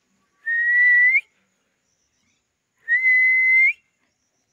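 A pet parakeet whistling twice. Each whistle is a long, level note that flicks upward in pitch at the end, and the two come about two and a half seconds apart.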